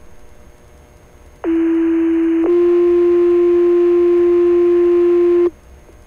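Two-tone sequential pager alert tones on a fire dispatch radio channel, over faint radio hiss. A low steady tone holds for about a second, then steps to a slightly higher tone held for about three seconds, and it cuts off sharply. These are the tones that set off the firefighters' pagers ahead of a page to the station.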